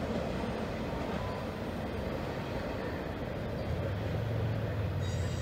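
Freight train of autorack cars rolling along the rails, a steady rumble of wheels and cars that stays even throughout, with a low hum growing stronger in the second half.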